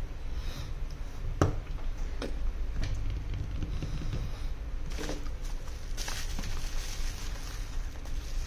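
Handling noise at a repair bench: a few light knocks and taps as a phone is handled and set down on a silicone mat, then the crinkle and rustle of bubble-wrap packaging being handled in the second half, over a steady low hum.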